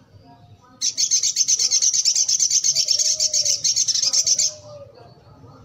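Caged male sunbird singing a loud, fast trill of high notes, about ten a second, that starts about a second in and lasts nearly four seconds.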